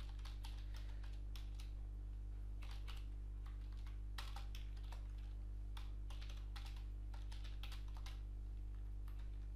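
Typing on a computer keyboard: quick key clicks in uneven runs with short pauses, over a steady low hum.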